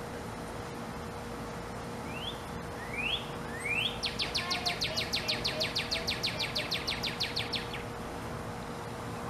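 Northern cardinal singing one song: three rising slurred whistles, then a fast trill of short rapid notes lasting about four seconds.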